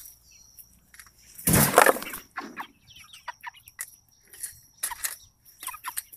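Red Ranger chickens clucking softly in scattered short calls. A loud thump of handling sounds about a second and a half in.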